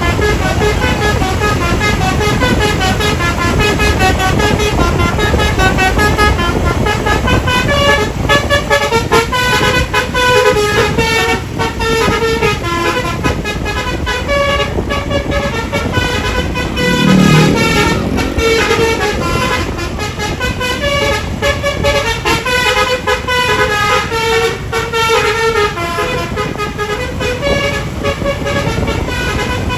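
Bus telolet horn, a multi-tone musical air horn, playing a run of quick melodic notes, tune after tune, over a low rumble. About halfway through, a lower sound sweeps up in pitch under the notes.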